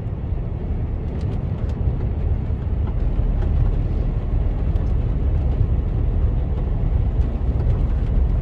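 Inside a moving lorry's cab: a steady low rumble of the engine and tyres on the road.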